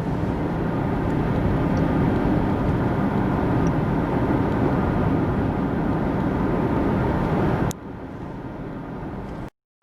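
Steady in-cabin noise of a car with a 2.0 petrol engine cruising in fifth gear at 2000 rpm, about 64 km/h: low engine hum mixed with tyre and road rumble. Near the end it drops suddenly to a quieter level and then cuts out briefly.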